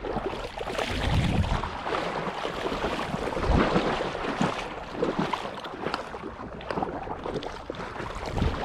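Irregular splashing and sloshing of shallow marsh water.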